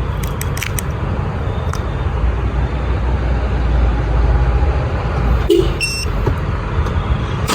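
Steady low rumble around a parked Subaru Outback as its factory remote start is triggered, with a few light clicks in the first second and a short tone about five and a half seconds in. The engine has not yet cranked.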